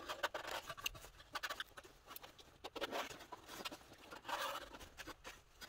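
Old screwdriver tip, used as a scribe, scraping along a sheet-steel panel to mark a cut line around a clamped patch: faint, irregular scratching strokes with small clicks.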